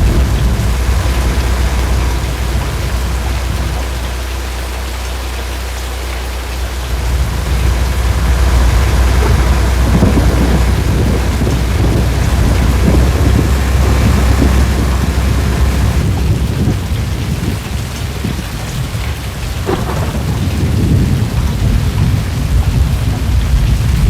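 Thunderstorm: heavy rain falling steadily, with a continuous deep rumble of thunder that fades a few seconds in and builds again.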